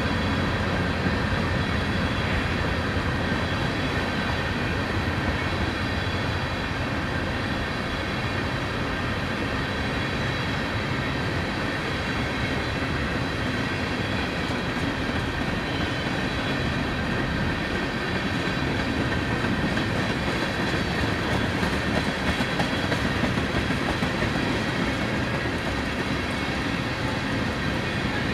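A freight train's tank cars rolling past at steady speed: a continuous rumble of steel wheels on rail with a clatter running through it.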